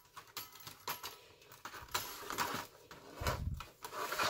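Plastic top cover of a Toshiba Satellite laptop being pried and lifted off its base: a string of sharp clicks and snaps as the clips let go, with rustling handling of the case near the end.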